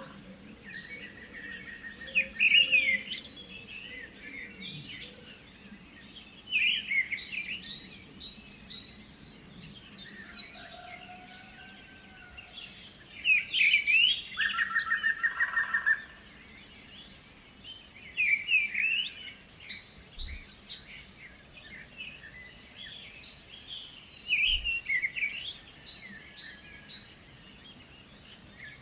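Several songbirds singing together. One bird repeats a loud, quick song phrase every few seconds, and a second gives a rapid, evenly pulsed trill twice, near the start and about halfway through.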